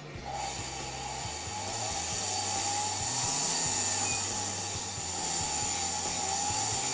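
Jeweler's high-speed rotary handpiece grinding and cleaning up a gold chain link: a wavering whine over a hiss, starting just after the opening and swelling and easing as the tool is worked. Background music plays underneath.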